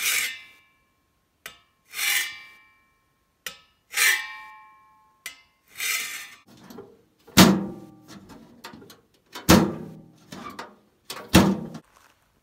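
A hand saw dragged across a painted steel pipe in four slow strokes about two seconds apart, the metal ringing with each stroke. Then three heavy boot steps on gravelly ground, about two seconds apart, with gritty crunching between them.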